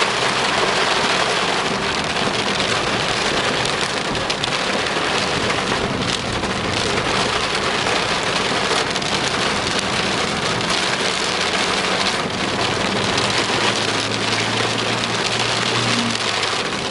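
Rain pouring down steadily, a dense even hiss with no break. A faint low hum joins in during the last few seconds.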